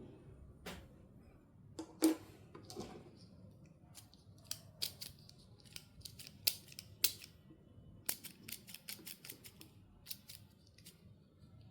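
Sharp clicks and snips from handling doll packaging and small plastic parts, with a quick run of clicks about eight seconds in.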